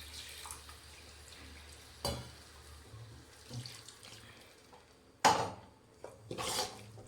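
Water being poured into a pan of gravy and stirred, with a sharp knock of a utensil against the pan about two seconds in and two short louder rushes near the end.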